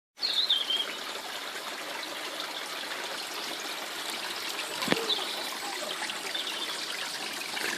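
Small garden water feature trickling steadily, with a few short high chirps over it and a single sharp tick about five seconds in.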